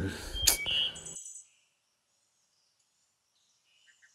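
A sharp click and a few short, high, bird-like chirps in the first second, then dead silence for about three seconds.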